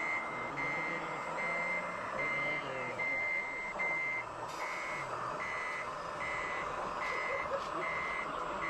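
Reversing alarm of a radio-controlled model truck beeping, a steady high tone repeating a little more than once a second, over a steady hiss.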